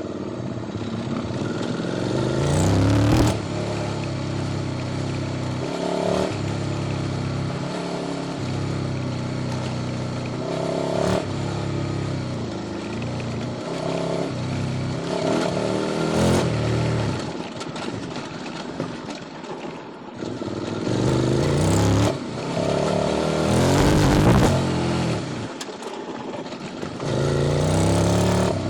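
QJ Motors SVT650X V-twin running through an Arrow Racetech exhaust on custom headers while riding. The revs rise and fall over and over as the throttle is opened and closed through the gears, with several sharp cracks along the way.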